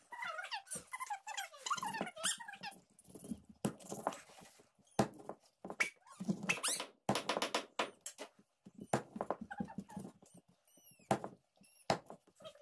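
A heavy chopping knife cutting fish into steaks on a wooden block, with irregular sharp chops. High squeaky chirps are heard over the first couple of seconds, and once more near the end.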